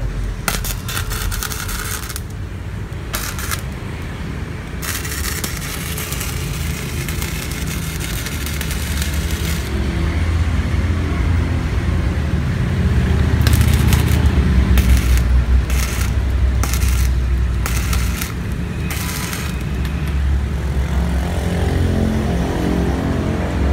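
Gasless (flux-cored) MIG welder, a Weldcom Multimag V2000, crackling at the arc as beads are laid on a steel bar: a few short bursts, one long run of about four seconds, then a string of short bursts about a second apart. A steady low rumble runs underneath.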